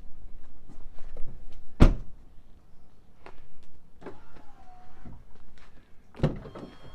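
Ram 3500 pickup door being shut, a heavy thunk about two seconds in, then a second thud near the end, with small clicks and handling noise between.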